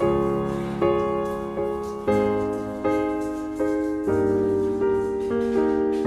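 Slow background piano music: soft chords struck about once every three-quarters of a second, each fading away before the next.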